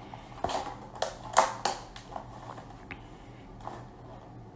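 Stiff clear plastic blister packaging of a trading card box crinkling and crackling in a person's hands: a handful of short crackles, most of them in the first two seconds and one more near the end.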